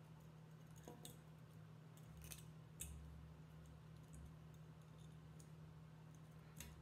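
A few faint metallic clicks and ticks of 18-gauge craft wire being bent and wrapped by hand around a stone, scattered over a steady low hum.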